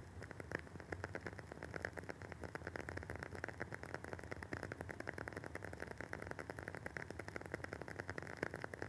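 Wooden wick of a WoodWick candle burning with a dense, quick crackle of small pops and ticks.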